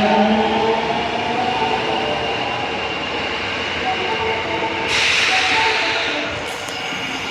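Osaka Metro 22 series subway train running, with a steady electric motor whine and rumble. About five seconds in there is a sudden burst of air hiss lasting about a second, followed shortly by a couple of sharp clicks.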